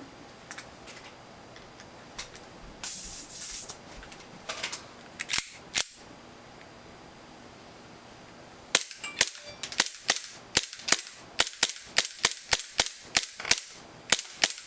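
Airsoft gas blowback Glock pistol firing BBs: two sharp shots about five and a half seconds in, then a quick string of about twenty shots, roughly three a second, the slide cycling each time. It now fires on every trigger pull, since a too-short trigger bar that kept it from engaging the sear has been replaced. A hiss lasting about a second comes about three seconds in.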